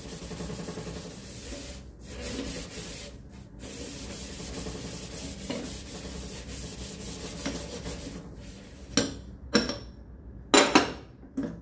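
Steel wool scrubber scouring a wet enamel gas stovetop, a steady rubbing scrape as dried-on spilt milk, softened with water, is scrubbed off. Near the end come a few sharp knocks.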